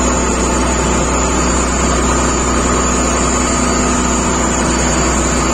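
Fishing boat's engine running steadily under way, a constant drone with a low hum.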